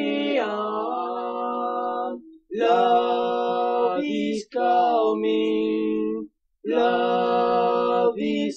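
Voices singing a cappella in harmony, in four sung phrases broken by short pauses.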